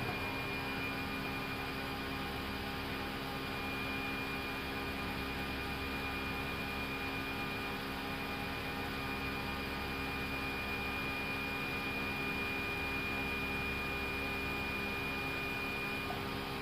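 Airbus A320 flight deck noise in the initial climb after takeoff: a steady rush of airflow and engine noise with low steady hums and a thin high whine over it.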